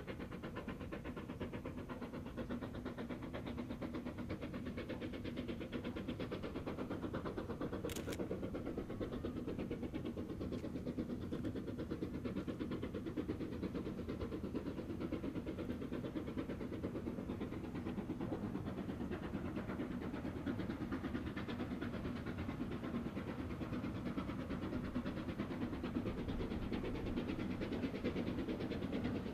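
C2 class narrow-gauge steam locomotive working toward the listener, its exhaust beating in a steady rapid rhythm that grows gradually louder as it approaches.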